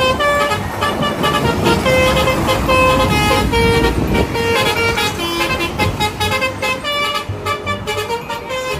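A bus's multi-tone 'telolet' horn playing a quick melody of short notes that step up and down in pitch, over a low engine and traffic rumble.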